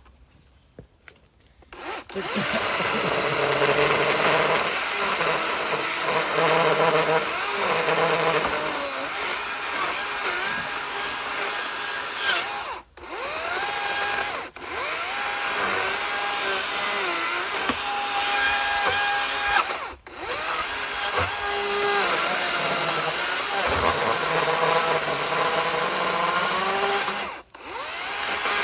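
DeWalt 60 V brushless battery chainsaw with a 16-inch bar cutting buckthorn wood. It starts about two seconds in, and the motor's whine sags and recovers in pitch as it bites under load. It stops briefly four times.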